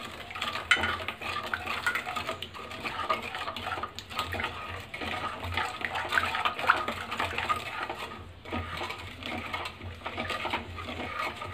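A spoon stirring and scraping around a kadhai of besan halwa cooking in milk: a continuous run of small scrapes and clinks against the pan, with the wet mixture being worked. The stirring is kept up without pause so the besan doesn't form lumps.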